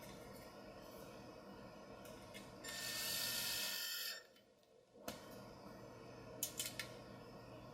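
A rasping, ratchet-like burst lasting about a second and a half, then a few light clicks near the end, from hand tools at work while the monitor's hardware is screwed back together.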